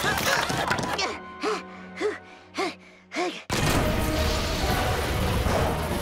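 Cartoon soundtrack music and sound effects: four short pitched notes that rise and fall, about half a second apart, then a sudden loud, dense burst of sound about three and a half seconds in that carries on.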